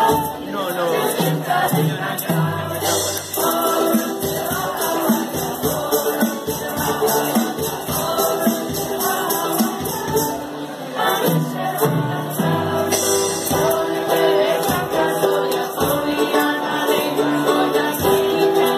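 A group of school students singing a song together with instrumental accompaniment and a steady rhythmic beat.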